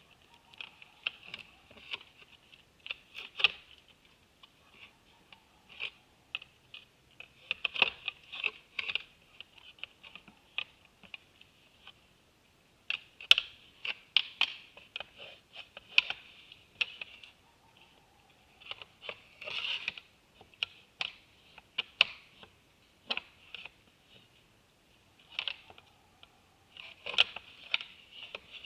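Irregular clicks and clacks at a deer feeder, coming in uneven clusters with short quiet gaps: bucks' antlers knocking against the feeder, or deer crunching feed close to the microphone.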